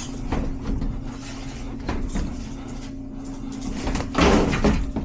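Sheet-metal air handler cabinet being shifted and worked loose, with scattered knocks and a louder scraping rattle about four seconds in, over a steady low hum.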